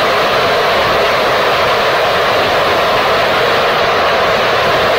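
Gilmour Space Phoenix third-stage liquid-fuelled rocket engine firing on a test stand in a sustained steady burn. The exhaust noise is loud and even, with no change in pitch or level.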